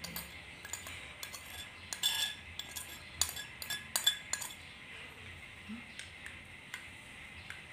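Metal spoon scraping and tapping on a china saucer as dry yeast is tipped off it into a glass mug, in quick short clicks. After about four and a half seconds it turns to fainter, sparser clinks as the spoon starts stirring the yeast into the milk in the mug.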